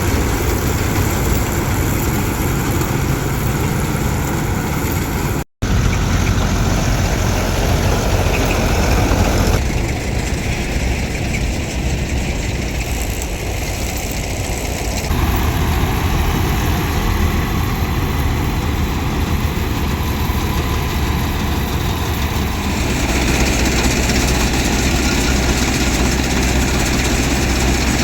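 Heavy diesel farm machinery running steadily: a combine harvester or tractor engine. The sound changes abruptly several times where clips are joined, with a brief dropout about five seconds in.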